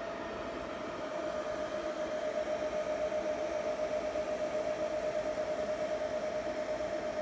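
Antminer L3++ Litecoin miner's cooling fans running at full speed: a steady rushing hiss with a constant whining tone. From about a second in, the level pulses slightly and quickly.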